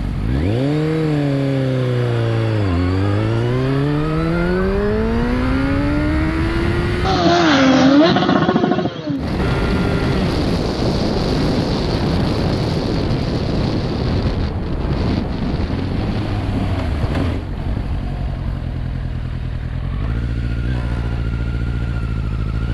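Kawasaki Z800's 806 cc inline-four through an Akrapovic exhaust with a long silencer, accelerating: its pitch climbs, drops sharply at an upshift about three seconds in, then climbs again. After about nine seconds a steady rush of wind and road noise covers the engine as the bike cruises.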